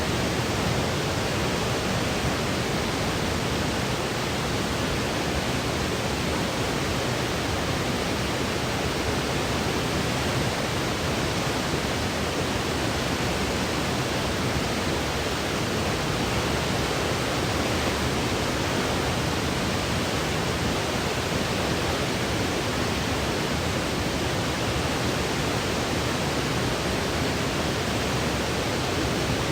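Steady, unchanging electronic noise for sleep: an even hiss heavier in the low end, close to pink noise, with no change in level.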